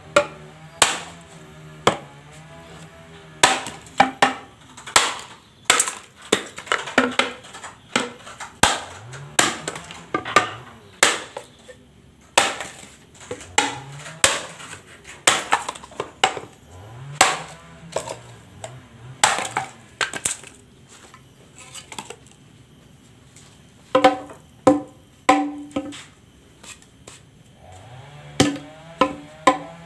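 Hand-forged golok machete chopping into wet bamboo: dozens of sharp chops at about one a second, with short pauses and a quick run of blows a little past the middle, as the blade's edge is put to the test.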